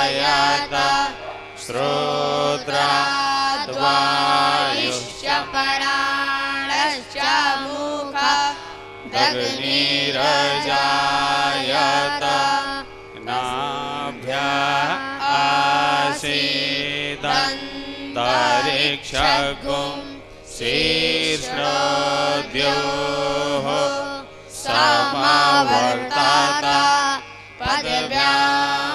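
A group of boys chanting Vedic hymns together into microphones. The chant goes in melodic phrases with short pauses between them.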